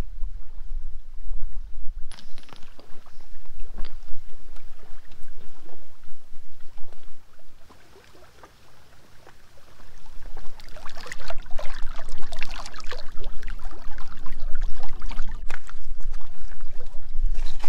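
Wind rumbling on the microphone over small waves lapping at a rocky lakeshore. Around eight seconds in it dips briefly; from about ten seconds in, a busier close splashing and trickling of water takes over.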